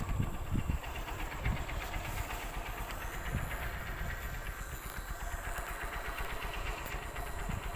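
Underwater ambience: a low rumble of water moving past the microphone, with low thumps and a steady fine crackle.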